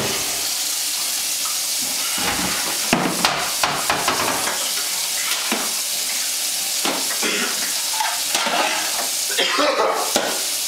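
Objects clattering and knocking as they are handled in a plastic recycling bin on a kitchen counter, over a steady hiss.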